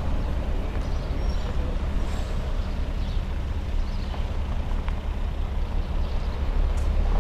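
Outdoor street background: a steady low rumble with an even hiss above it and a few faint clicks.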